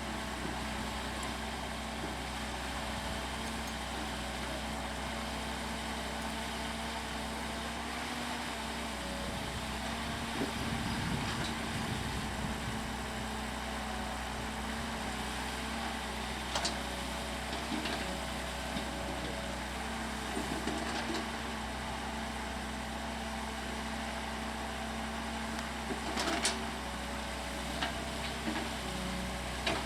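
CAT excavator's diesel engine running steadily, with a few short sharp knocks from the machine's work in between.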